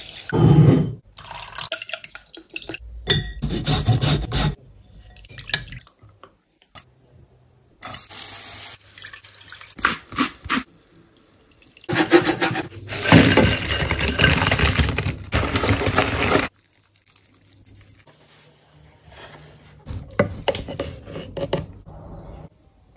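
Kitchen sounds in a run of short, abruptly cut clips: an orange squeezed by hand with juice splashing and dripping into a glass bowl, and later orange sauce stirred in a pan with a spatula.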